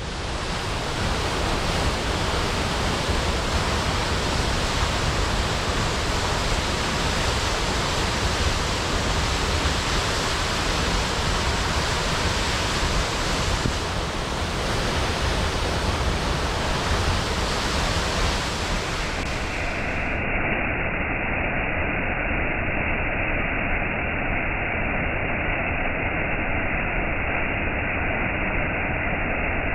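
Waterfall: a steady, dense rush of falling water. About twenty seconds in, the sound turns duller as its upper range drops away.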